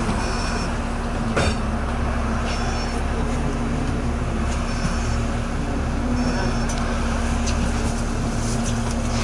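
Diesel engine of a 2001 New Flyer D40LF transit bus idling while the bus stands still, heard from inside the cabin as a steady low rumble with a constant hum. A click sounds about a second and a half in, and faint high chirps repeat about every two seconds.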